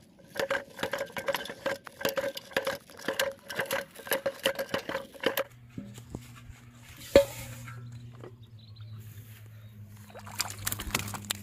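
Rapid, even clicking for about five seconds, then a low steady hum with one sharp knock. Near the end a hooked fish splashes in shallow water at the bank.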